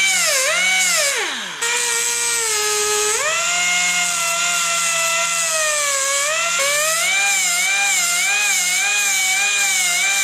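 Small electric power tool motor running with a high whine whose speed wavers up and down. It spins down about a second and a half in, then runs back up and keeps going.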